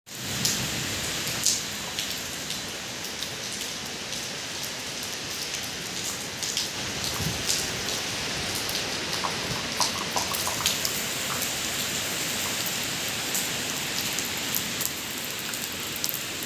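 Heavy rain falling in a steady hiss, with many individual drops ticking on hard surfaces.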